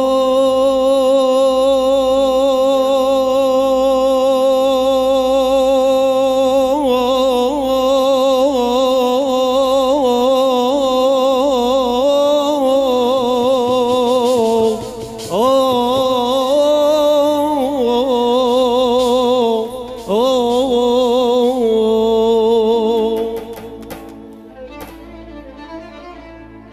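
Male singer performing an Assyrian mawwal through a microphone: one very long held note with wavering vibrato, then shorter ornamented phrases that scoop up into each note. The voice stops a few seconds before the end, leaving quieter music.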